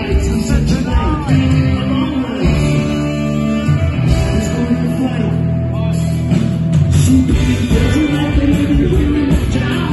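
Live rock band playing loudly, with electric guitar, drums and a male lead singer, heard from the audience in a concert hall.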